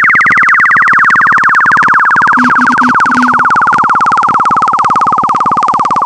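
Loud computer-generated bytebeat audio from a GDI malware's sound payload: a buzzy, rapidly pulsing tone gliding slowly down in pitch, siren-like, with a short cluster of low beeps a little before the middle.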